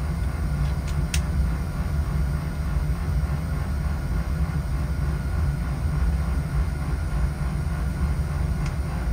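Oil-fired boiler's burner firing: a steady low rumble of the flame and burner blower, with one faint click about a second in.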